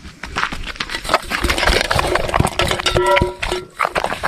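A dog moving about with a run of clicks and knocks, and a short whine about three seconds in.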